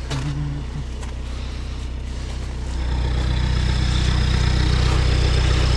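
All-terrain vehicle's engine idling steadily, growing louder about three seconds in, with a faint high whine over it.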